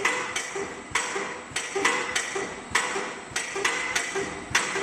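Paoloni cross-cutter band-sawn-effect machine running. It knocks sharply at an uneven pace, about two to three strikes a second, each strike with a brief ringing tone, as its head randomly marks the wood surface.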